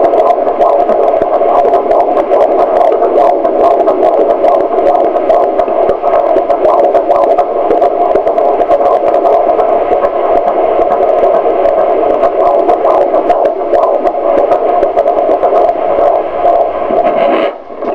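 Fetal heartbeat at 16 weeks picked up by a handheld Doppler probe and played through its speaker as a loud, steady noise that stops abruptly near the end.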